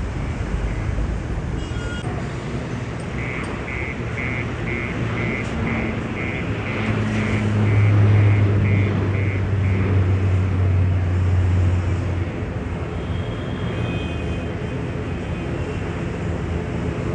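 Steady engine rumble and outdoor noise, swelling louder for several seconds midway and then easing. A rhythmic high beeping, about two beeps a second, runs through the first half.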